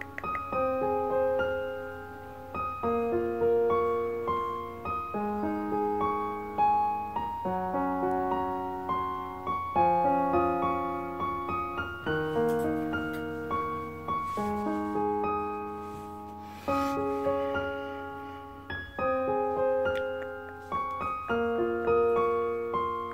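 Background solo piano music: a gentle melody of single notes and broken chords, each note struck and fading away.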